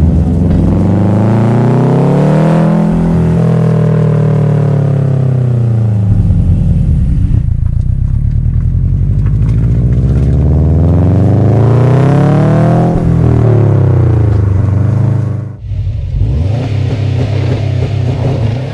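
Subaru WRX STI's turbocharged flat-four boxer engine pulling up through the revs and back down twice with its boxer rumble, then a sudden brief drop in sound near the end before it runs on steadily.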